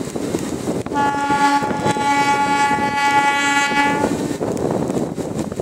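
Train's locomotive horn sounding one long, steady blast of about three seconds, starting about a second in. It plays over the steady wind rush and rumble of the moving train, heard from one of its coaches.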